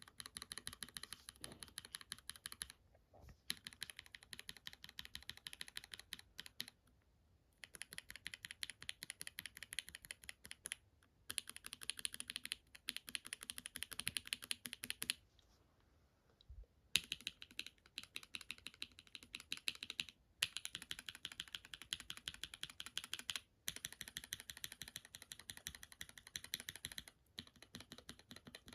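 Enthusiast mechanical keyboard switches on a switch tester being typed rapidly. Dense runs of clacking last about three seconds each, with short pauses between them as each new switch is tried, about nine runs in all.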